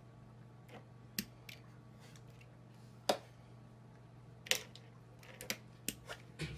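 Scattered sharp clicks and taps on a hard surface, about half a dozen, the loudest about three seconds in, over a steady low hum.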